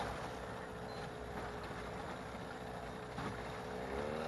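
Small boat motor running steadily at low speed, its pitch rising near the end as it is throttled up.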